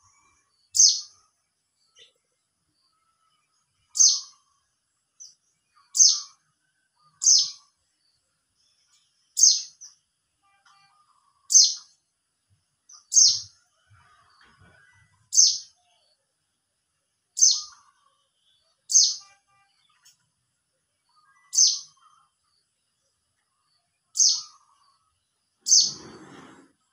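Mountain white-eye (pleci 'Monty') giving short, sharp, high calls, each a quick falling chirp, about thirteen spaced a second or two apart: calls to other white-eyes. A brief low rustle comes near the end.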